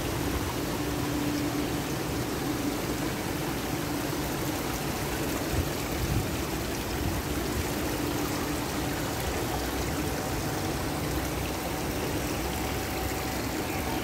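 Water trickling and splashing over the small rock ledges of a shallow garden stream, a steady, even running-water sound.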